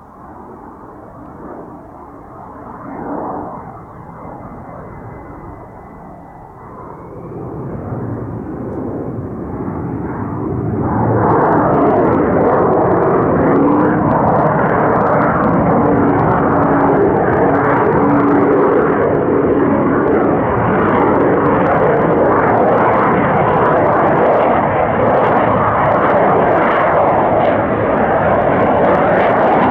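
Jet noise from an F-35A's single Pratt & Whitney F135 engine, fainter for the first few seconds, building from about seven seconds in, then loud and steady from about eleven seconds on.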